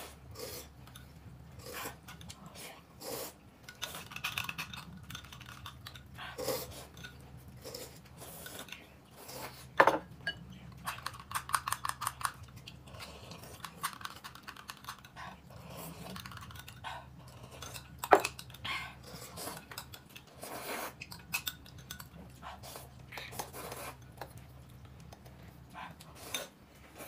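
Metal spoons clinking against small glass cups, with noodle slurping and chewing between; two sharp clinks stand out, about ten and eighteen seconds in.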